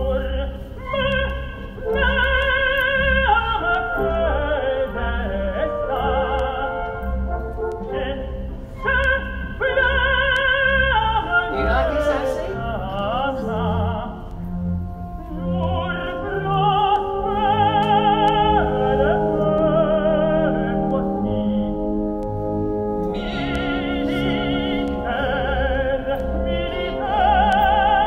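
Operatic tenor singing long notes with wide vibrato over instrumental accompaniment that has a regular low bass pulse.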